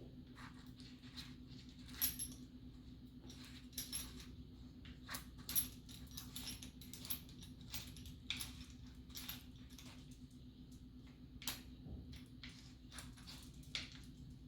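Small hard parts being handled: irregular light clicks and metallic clinks, over a steady low hum.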